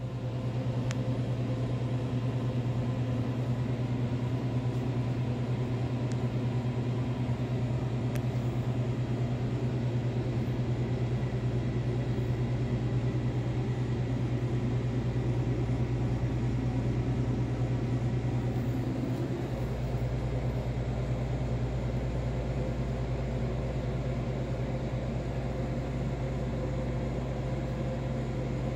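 Dixie Narco BevMax DN5800 drink vending machine's refrigeration unit running, a steady low mechanical hum.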